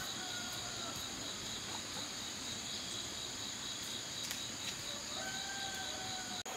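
Insects chirring steadily at a high pitch, one of them in a rapid pulsing trill, over a faint outdoor background with a fainter lower tone that slides down early on and back up near the end.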